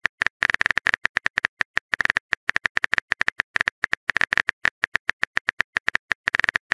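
Phone keyboard typing sound effect: rapid, irregular clicks as a text message is typed out.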